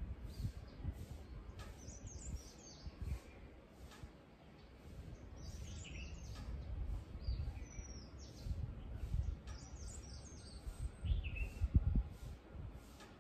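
Small birds chirping and calling outdoors: scattered short chirps and quick sliding notes. Under them runs an irregular low rumble, loudest near the end.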